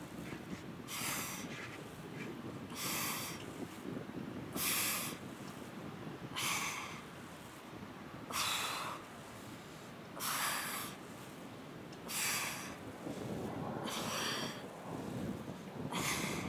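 A woman's forceful breaths out, one with each crunch, in an even rhythm of about one every two seconds, over a steady low background rush.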